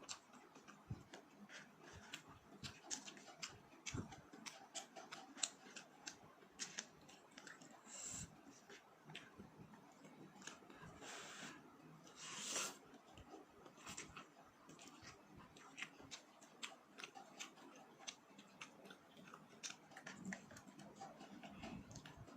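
Quiet eating sounds from cup noodles and fried chicken: chewing with many small clicks, and a short louder noisy burst about twelve seconds in.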